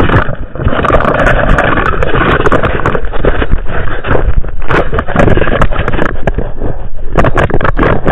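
Wooden cart with a flat wheel being pushed and dragged over snow and frozen ground: a loud, continuous rough scraping noise with many sharp knocks and rattles.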